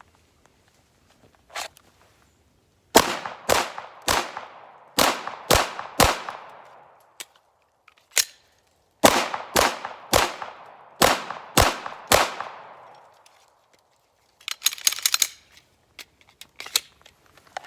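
Glock 17 Gen 5 9mm pistol firing twelve shots in a Mozambique drill: six shots in pairs and singles, a pause of about three seconds for a magazine change, then six more in the same two-two-one-two-two-one rhythm, each shot with a short echo. A short rattle follows near the end.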